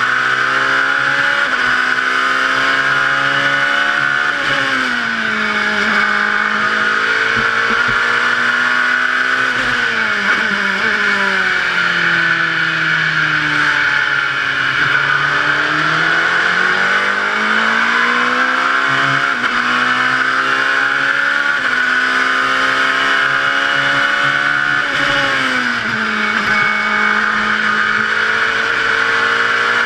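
LMP2 prototype race car's engine, heard from inside the cockpit at lapping speed. Its pitch climbs as the car accelerates and drops back as it slows for corners, several times over, with one long slow fall and climb in the middle, over a steady rush of noise.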